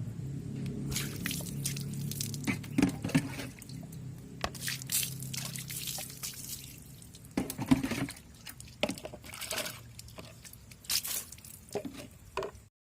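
Water dripping and splashing in irregular drops, typical of rinse water running off a freshly washed motorcycle engine.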